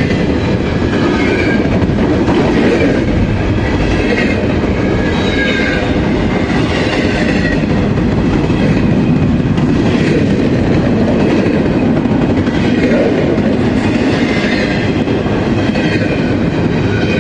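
Freight train of double-stack intermodal well cars rolling past at close range: a steady loud rumble and clatter of steel wheels on the rails. Faint high ringing tones from the wheels come and go over it.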